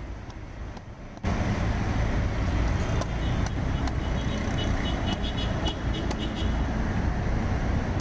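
Street traffic noise: a loud, steady rumble of passing motor vehicles that starts abruptly about a second in, with a few faint knocks and a short run of high tones in the middle.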